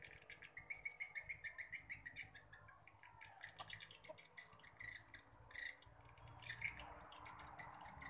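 Faint high chirping of edible-nest swiftlets. Quick even runs of about five or six chirps a second fill the first three seconds, then the chirps come more scattered, over a low rumble in the second half.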